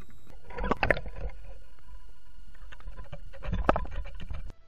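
Splashing water from a hooked fish being drawn up to and out of the surface: one burst of splashing about a second in and a second burst around three and a half seconds in, over a steady faint hum.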